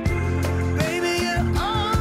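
Background pop music: a song with steady bass and drums, a melody line coming in about halfway through.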